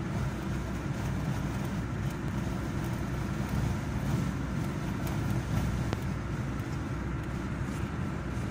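Steady road and engine noise of a moving car, heard from inside the cabin as a low rumble.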